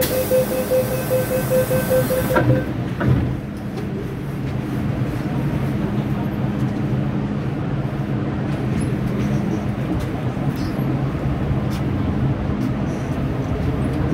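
Door-closing warning beeps on a Hong Kong MTR modernised M-Train with a hiss, then the doors shutting with two knocks about two and a half and three seconds in. After that comes the train's steady running hum as it pulls out of the station.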